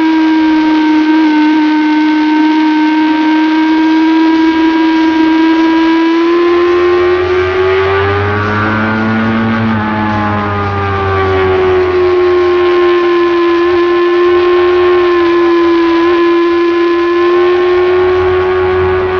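Motorcycle engine running at high revs, heard from on the bike at speed. The engine note climbs for a few seconds from about six seconds in, then drops back around ten seconds in and holds steady again.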